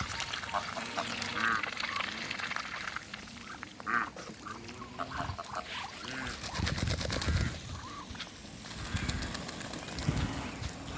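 Ducks calling with short, scattered quacks, several birds together, over a low rumbling noise in the second half.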